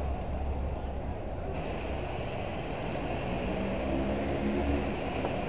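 Open-top tour bus on the move, heard from its upper deck: a steady low engine rumble under a hiss of wind and road noise, the hiss growing stronger about a second and a half in.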